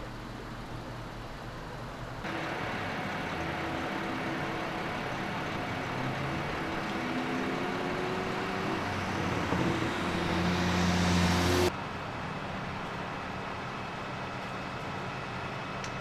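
Motor vehicle engine noise with a steady outdoor background. The sound changes abruptly about two seconds in, then an engine hums with shifting pitch and grows louder toward the middle before cutting off sharply.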